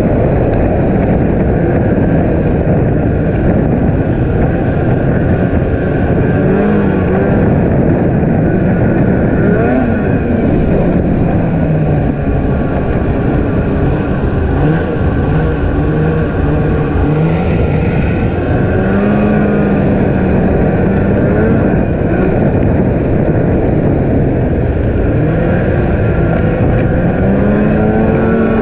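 Polaris snowmobile engine running under way, its pitch rising and falling again and again as the throttle is worked, over a loud steady rush of wind and track noise.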